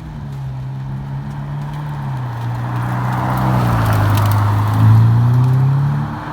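Ferrari F8 Tributo's twin-turbo V8 running at low revs as the car drives by slowly. It grows louder to a peak about five seconds in, then drops off near the end, its low engine note dipping and then rising again.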